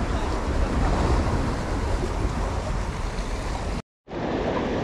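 Rough sea surf washing and breaking against a rock breakwater, with wind rumbling on the microphone. The sound cuts out briefly near the end.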